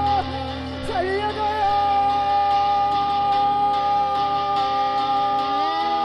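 Live experimental music: a flute holding one long steady note over sustained droning lower tones. Short swooping slides come about a second in, and the lower tones step upward near the end.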